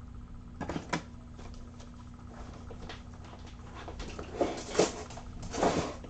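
Rustling and clattering of small items being handled: a short burst about half a second in, then a longer run of handling noise from about four seconds in until near the end, over a faint steady hum.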